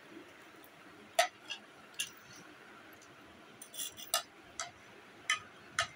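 A metal spoon clinking against a china plate of vermicelli, in a scattered series of short, sharp clicks, the loudest about a second in and several close together around four seconds.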